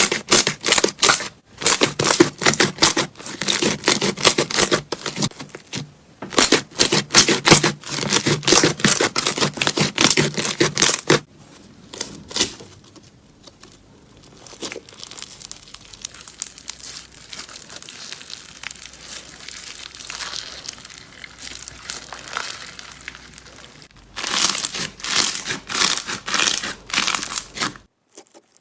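Slime being squeezed and pressed by hand, with dense runs of crackling and popping air bubbles. After about eleven seconds it turns to a softer, quieter crackle, and it pops loudly again near the end.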